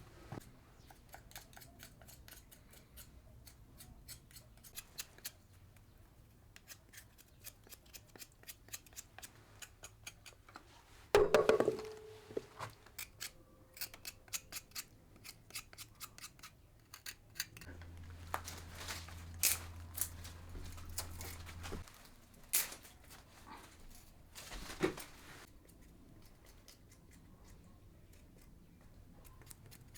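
Scissors snipping over and over in quick, light clicks. There is a louder clatter about a third of the way in, and a low hum for a few seconds past the middle.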